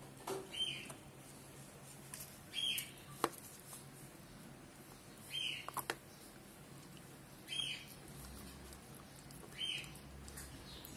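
Bully kutta (Indian mastiff) puppy gnawing a hard chew bone, with two sharp clicks of teeth on the bone. A short, high chirp repeats about every two seconds.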